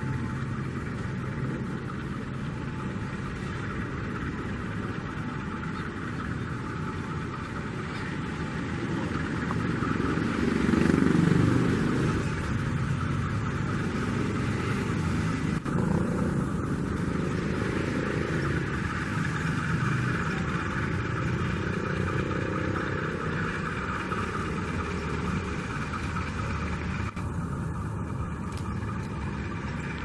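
Diesel locomotive approaching slowly, its engine running steadily and swelling louder for a couple of seconds around ten seconds in.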